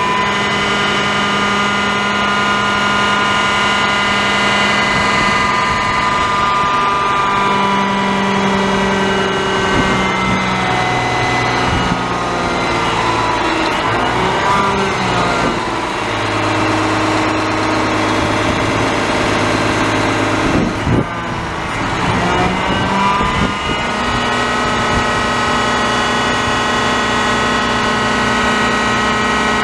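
Garbage truck's diesel engine running at idle. Through the middle stretch its pitch shifts and glides up and down, then it settles back to a steady idle.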